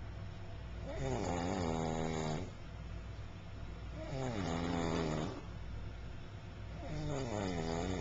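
Snoring: three long, pitched snores, each about a second and a half, coming evenly about every three seconds.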